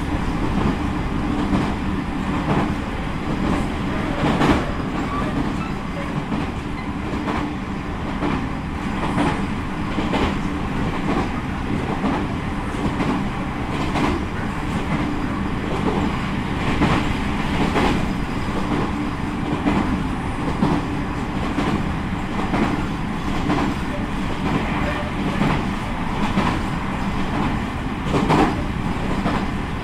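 A JR Central 313 series electric train running at speed, heard from inside the passenger car. The wheels make a steady rumble on the rail under a low hum, with a sharp wheel clack now and then.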